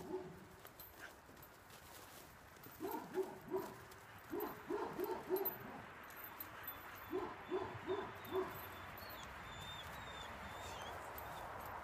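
Bedlington terrier puppy giving short whining yips in three quick runs of three to five, each call dropping slightly in pitch.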